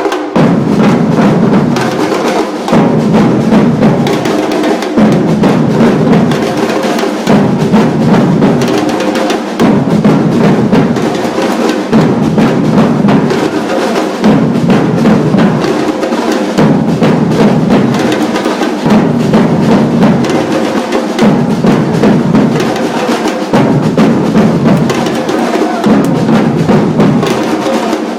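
A percussion ensemble drumming a dense, loud groove, with bass drums under sharp higher drum strikes. The low drum part repeats in a phrase about every two seconds.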